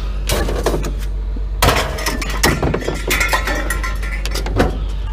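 Loose scrap steel clattering and clinking: small metal pieces are grabbed off a pickup truck bed and thrown onto a scrap pile, with many sharp knocks in quick, irregular succession over a steady low hum.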